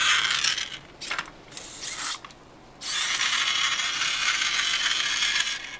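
Small hobby robot's gear motors whirring and grinding, in a few short spurts and then one steady run of about three seconds that stops just before the end.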